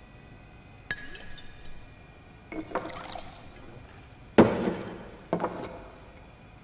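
A glass bottle clinks against glassware, a drink is poured, and glass is set down on a table: a light clink about a second in, a short pour, then a sharp knock, the loudest sound, a little past four seconds, and a second knock about a second later.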